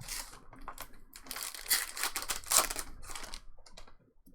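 Crinkling of a trading-card pack's foil wrapper being handled and crumpled, a crackly rustle with a few louder crackles in the middle that fades out near the end.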